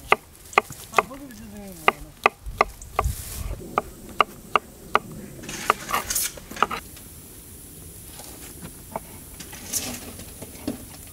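Kitchen knife chopping through button mushrooms onto a wooden board: a quick run of sharp taps, about two or three a second, for the first five seconds. After that come a few scattered taps.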